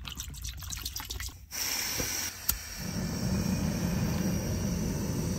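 Water pours from a plastic bottle into a stainless steel pot for about a second and a half. Then a backpacking canister gas stove hisses, a sharp click comes about two and a half seconds in, and the burner settles into a steady low rushing burn.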